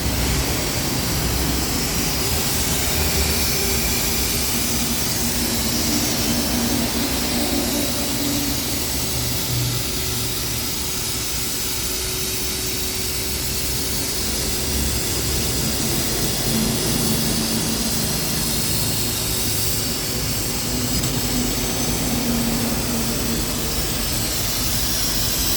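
Steady machinery running in a metalworking shop: a continuous whirring drone with a low rumble, a high hiss and a faint humming tone, with no blows or impacts.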